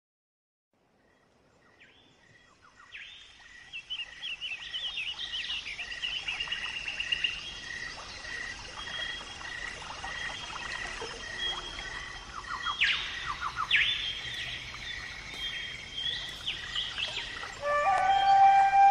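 Birds chirping and calling in quick, repeated high chirps, starting after about two seconds of silence. Near the end a held musical note comes in.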